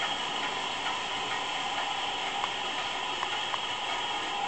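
A 20-inch Davis and Wells bandsaw running free with no cut, a steady mechanical whir holding several even tones, with a few faint ticks past the middle.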